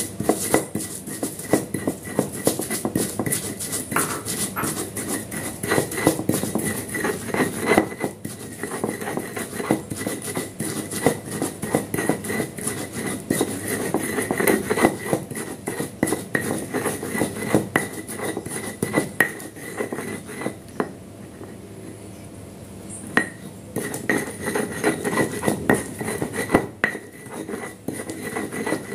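Stone pestle grinding garlic paste on a flat stone mortar (ulekan and cobek): rapid scraping, clacking strokes of stone on stone, easing off for a few seconds about two-thirds of the way through.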